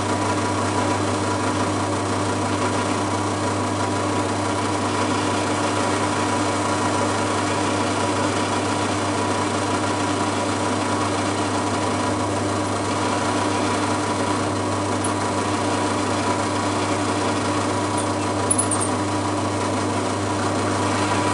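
Bench drill motor running steadily, a constant hum with a whine, while drilling 4.5 mm holes into the spacer blocks.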